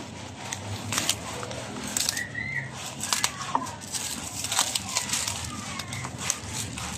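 Scissors cutting through layers of plastic stretch wrap on a cardboard box: a string of short, sharp snips and crinkles of the plastic at uneven intervals.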